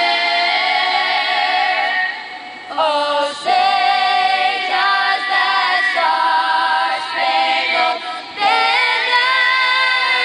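A group of girls singing a national anthem a cappella in close harmony into one microphone. They hold long notes with vibrato, with two brief breaths between phrases, about two and a half and eight seconds in.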